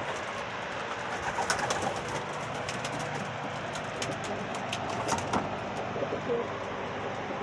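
Domestic pigeons cooing in a loft, a low steady murmur, with scattered short sharp clicks and rustles.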